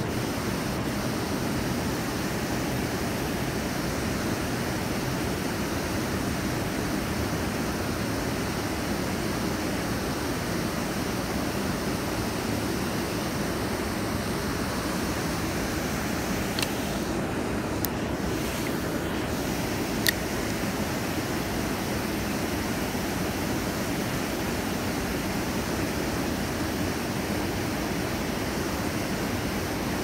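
Steady rush of river water pouring over a low dam and churning below it. A few short clicks come in the middle, the sharpest about twenty seconds in.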